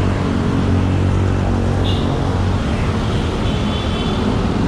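Road traffic noise with a motor vehicle engine running close by as a steady low hum, and a brief high tone about two seconds in.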